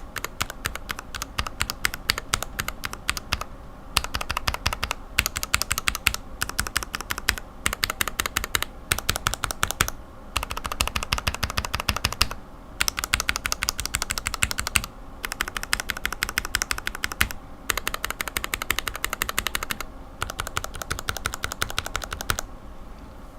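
Lubed linear mechanical keyboard switches pressed rapidly and repeatedly, clacking in runs of a second or two with brief pauses between them. The clacking stops near the end.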